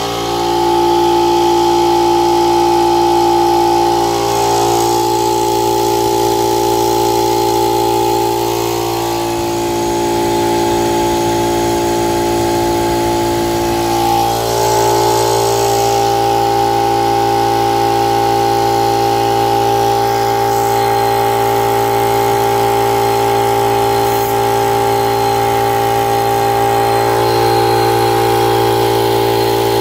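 Motomil 25-litre 2 HP air compressor running steadily on 220 V, its freshly rewound two-pole electric motor driving the pump to fill the tank, with a steady hum and whine. This is the motor's test run after rewinding.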